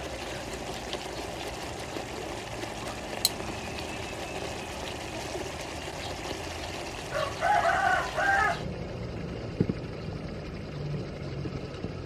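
A rooster crows once, about seven seconds in, broken into a few segments. Under it is the steady hiss of a pot of fish curry bubbling at a simmer. The hiss drops away suddenly after the crow, leaving a faint low hum.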